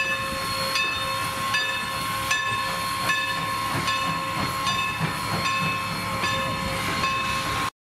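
Norfolk & Western #475, a Baldwin 4-8-0 steam locomotive, and its train rolling past: steady steam hiss with a steady high-pitched tone, and sharp clicks about every 0.8 seconds as the wheels cross rail joints. The sound cuts off suddenly near the end.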